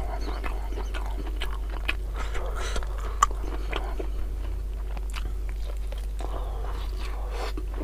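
Close-miked chewing and biting by a man eating beef tongue in rica-rica sauce with rice: irregular wet mouth clicks and smacks, the sharpest about three seconds in, over a steady low hum.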